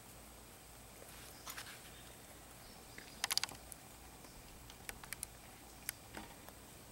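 Quiet background with scattered small clicks and ticks: a quick run of four or five about three seconds in, and a few single ones later.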